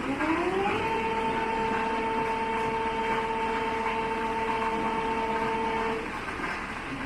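Bullard vertical lathe's table drive spinning up with a rising whine, then running at a steady pitch over mechanical running noise. The whine stops about six seconds in.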